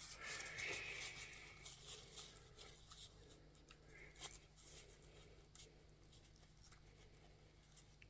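Faint handling noise: small plastic clicks and rubbing from a vintage action figure being turned over in the hands, over a low steady hum.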